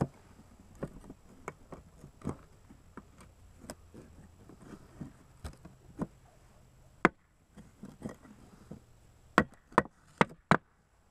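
Irregular taps and knocks on wooden slats as a small screwdriver-like tool is worked into the gaps between the boards, with a quick run of louder sharp clicks near the end.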